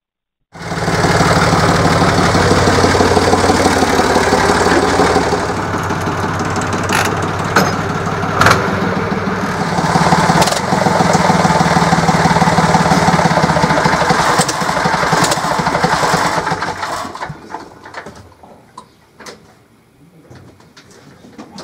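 IHC 633 tractor's four-cylinder diesel engine running steadily, then shut off about 17 seconds in and dying away, followed by a few faint clicks.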